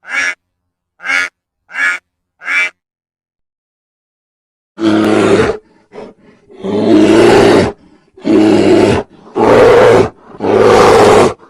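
Animal calls: four short, quick calls about two-thirds of a second apart, then after a pause five loud, harsh, drawn-out calls of about a second each.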